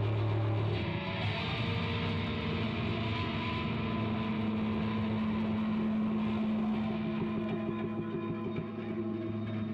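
Hollow-body electric guitar laid flat and played with a pair of sticks, giving sustained droning tones: a low hum for about the first second, then a held higher note with fainter tones over it.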